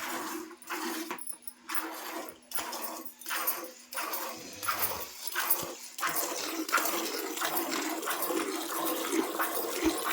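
Milk squirting into a pail as a cow is milked by hand, in rhythmic spurts that come about twice a second at first and run faster and closer together from about halfway in.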